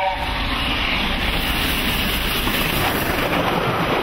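Streamlined LNER A4 Pacific steam locomotive and its coaches passing at speed close by: a loud, steady rush and rattle of wheels and train. Its chime whistle cuts off just at the start.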